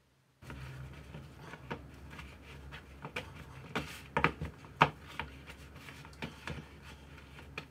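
Hands kneading bread dough in a plastic bowl: soft squishing with scattered light slaps and taps, two sharper ones about four and five seconds in. The dough is being worked before it is left to rise.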